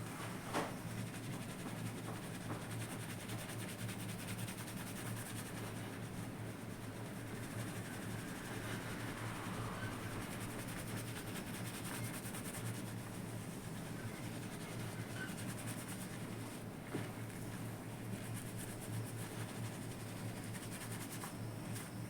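Shampoo being lathered and worked into a scalp by hand: a soft, continuous rubbing with fine crackle of foam, over a low steady hum.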